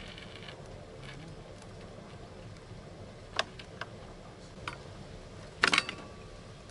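Fishing tackle being handled by hand: a few light, separate clicks, then a short, louder clatter of clicks near the end.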